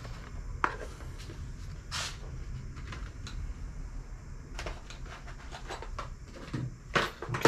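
Handling noise at a workbench: scattered light clicks and knocks of small items being moved and rummaged through, the loudest near the end, over a low steady hum.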